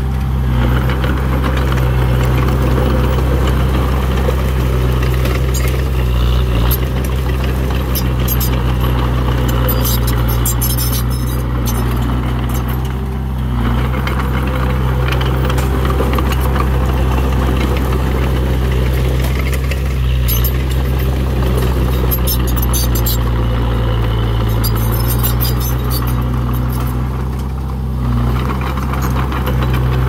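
Komatsu D21P bulldozer's diesel engine running steadily, easing off briefly twice. Bursts of high clatter come from about ten to twelve seconds in and again from about twenty to twenty-six seconds.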